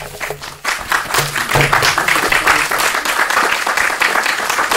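Small audience applauding, the clapping swelling within the first second and then running on steadily.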